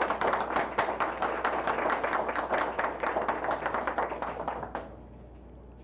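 Small audience applauding with a dense patter of hand claps that dies away about five seconds in.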